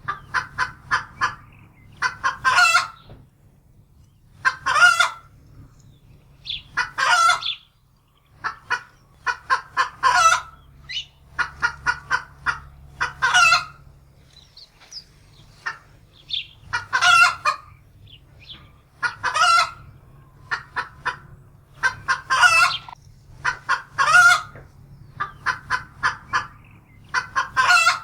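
Domestic hen cackling in alarm. Runs of short clucks build into a long, loud squawk, and the pattern repeats about every two to three seconds.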